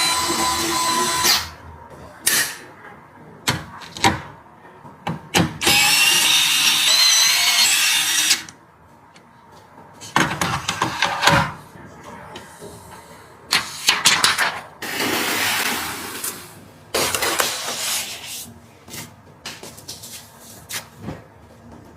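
Small electric screwdriver whirring in short bursts of one to a few seconds as it drives screws during PC assembly, with sharp clicks and knocks of parts being handled between the bursts.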